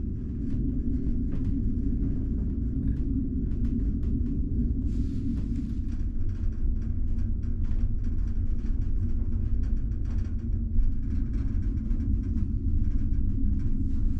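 Steady low rumble of the large car ferry's engines and hull, heard from inside a passenger cabin while the ship is under way. Light scattered clicks and a brief rustle about five seconds in sit over it.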